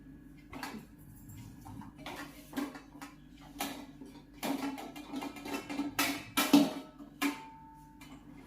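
Kitchen utensils and containers being handled, giving a string of irregular light knocks and clinks. One clink rings on briefly about seven seconds in.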